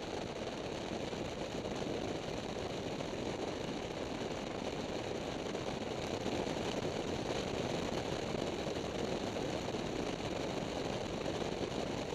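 Triumph Tiger motorcycle cruising at a steady road speed: its engine running under a constant rush of wind and road noise, with no change in pace.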